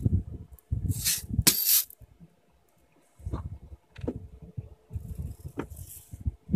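Pellet gun being handled between shots: a sharp click at the start, two short hisses about a second in, then scattered rattling and knocking as it is lowered and worked.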